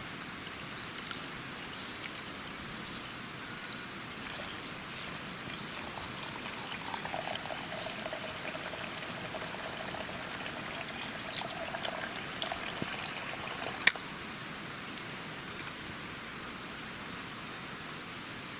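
Liquid being poured into a container in two pours, the second ending in a sharp click, over a steady faint hiss.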